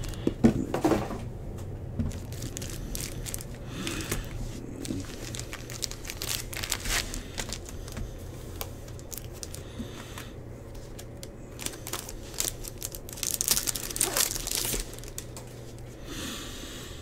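Packs from a Bowman baseball hobby box being ripped open: wrappers crinkling and tearing in scattered bursts, with cards being handled. Under it is a low steady hum.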